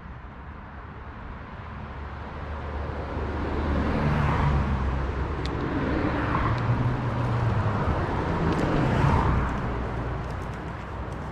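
A motor vehicle passing, its engine hum and noise growing louder over a few seconds, holding, then fading away.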